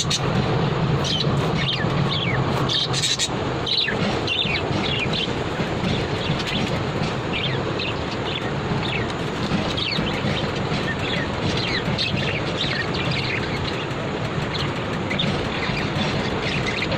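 Small birds chirping: many short, quick chirps, each falling in pitch, over a steady low background noise.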